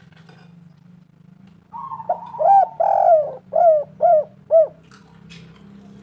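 Spotted dove cooing: an opening note, then a quick run of about five arching coos, starting a little under two seconds in.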